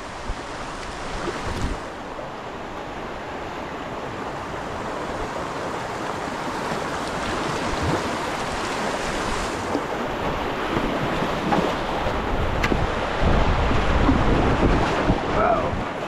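Rushing river whitewater, a steady wash of water noise that slowly grows louder, with wind buffeting the microphone in low gusts, strongest near the end.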